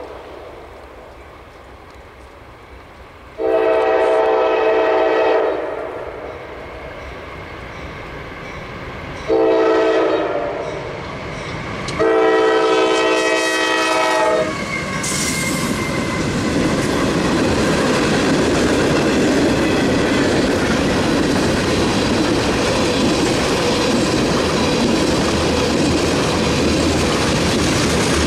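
Norfolk Southern freight train's multi-chime air horn sounding the grade-crossing signal: a long blast, a short one, then a final long one as the lead locomotives reach the crossing. After the horn, the locomotives and then the freight cars rumble and clack steadily past.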